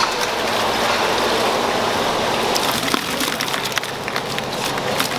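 Water splashing and bubbling in an aerated tank of live whiteleg shrimp as a net scoops through it. From about halfway, quick sharp clicks and taps as the live shrimp flick against a plastic bowl.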